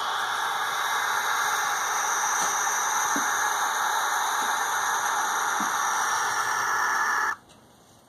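Barn owl giving its defensive screech, a loud, harsh hiss held steadily for about seven seconds and then cut off abruptly. It is a threat display by a cornered owl.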